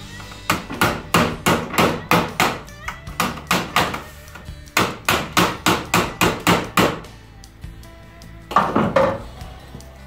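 Hand hammer striking a thin sheet-metal patch panel to roll its edge over the fender lip: runs of sharp metal blows about three a second, a short pause near four seconds, a second run, then a couple more blows near the end.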